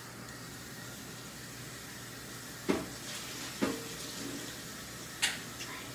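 Steady hiss with three light clinks of spoons against each other and the pan, the middle one ringing briefly.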